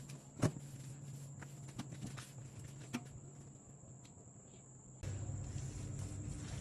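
Quiet kitchen handling: a few light clicks and taps, then a low steady hum sets in abruptly about five seconds in.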